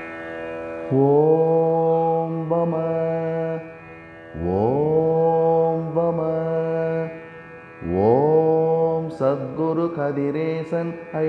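Devotional Indian music with a chanted mantra: a voice slides up into three long held notes, one after another, over a steady drone. From about nine seconds in the chant turns into quicker, shorter notes.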